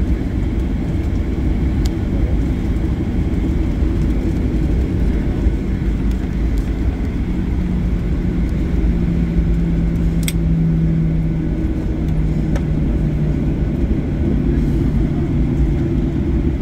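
Cabin noise of a jet airliner taxiing after landing: a steady low rumble from the idling engines and the rolling wheels. A low steady hum comes in about halfway through, with a few faint clicks.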